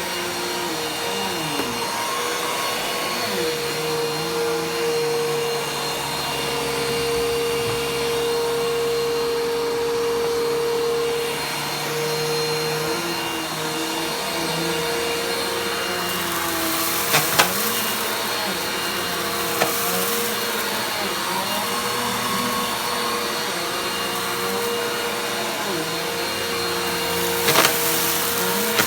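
Vacuum cleaner running steadily, its motor tone shifting slightly in pitch now and then, with a few sharp clicks or knocks a little past halfway and again near the end.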